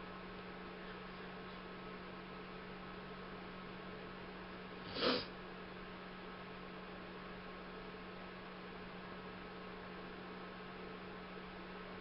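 Steady low electrical hum, with one brief noisy burst about five seconds in.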